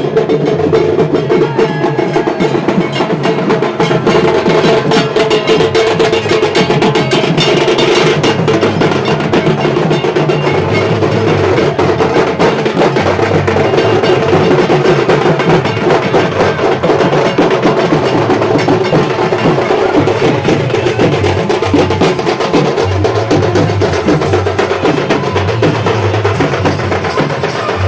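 Loud dance music with fast, dense drumming and sharp woodblock-like clicks over a pulsing bass, played through a DJ speaker system at a sound check.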